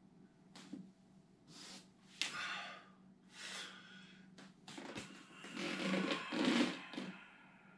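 A person breathing deeply through a slow series of drawn-out breaths, with a single soft thump of a bare foot on a foam mat about five seconds in.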